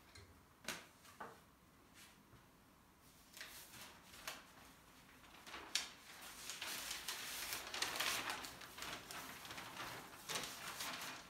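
A few light, sharp knocks, as the long wooden rolling pin wrapped in dough is set on the glass tabletop, then several seconds of crackly rustling from about six seconds in.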